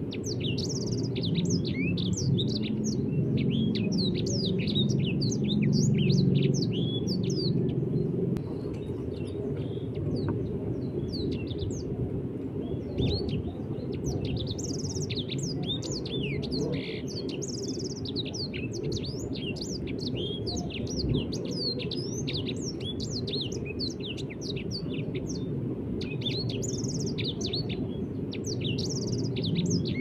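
Small caged songbird singing: fast runs of high chirps and trills in bouts of several seconds with short pauses between, over a steady low background rumble.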